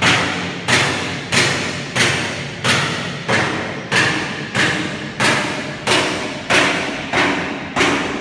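Loud, evenly spaced thuds, about three every two seconds, each one ringing out before the next, from a machine striking in a steady rhythm in the workshop, over a low steady hum.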